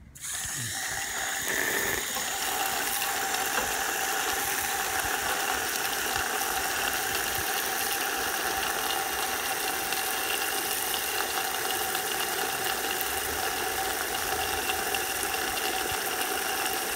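Water pouring into the rain barrel system's PVC diverter pipe as it is filled: a steady rushing that starts suddenly at the beginning and holds level, with a faint steady tone in it.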